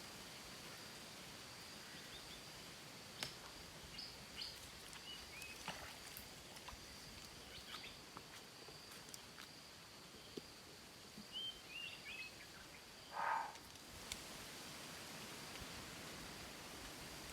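Outdoor ambience by a stream: a steady high insect drone with scattered short bird chirps, a few sharp clicks, and a brief louder call about 13 seconds in.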